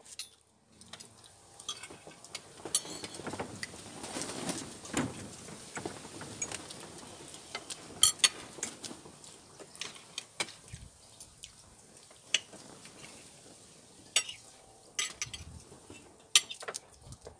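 Knife and fork clinking and scraping on dinner plates as meat is cut, with scattered sharp clicks of cutlery against dishes.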